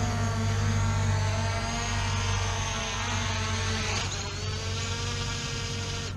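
Quadcopter drone's propellers whining, the pitch wavering as it descends, then touching down about four seconds in. It keeps spinning steadily on the ground until the motors cut off at the end.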